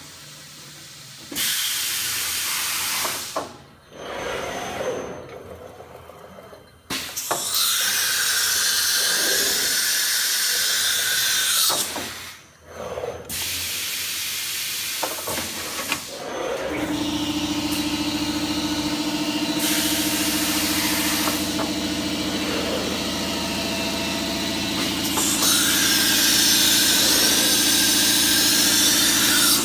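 Tool changer of a Morbidelli router converted to CNC, running an automatic tool-change cycle. Long blasts of hissing air come with sharp clunks as tool holders are dropped off and picked up. From a little past halfway, a steady machine hum sets in under the hiss.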